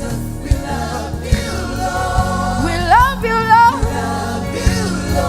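Live gospel worship music: a choir and worship singers sing a sustained line with a rising vocal run about halfway through, over a full band with bass and drums.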